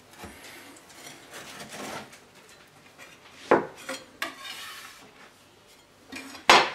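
A large kitchen knife sawing through a tart's crunchy caramelised macadamia nut topping and shortcrust base, a rasping, crackling scrape. Then a few sharp knocks follow, the loudest near the end.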